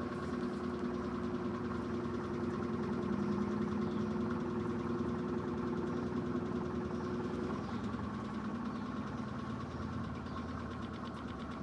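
Electrolux LED14 washing machine running with a steady mechanical hum. One of its higher tones drops out about two thirds of the way through.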